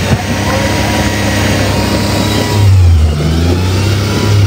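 Rock-crawler buggy's engine working hard on a rock climb, revving up sharply a little over halfway through, over the steady noise of tires spinning and scrabbling on rock and dirt.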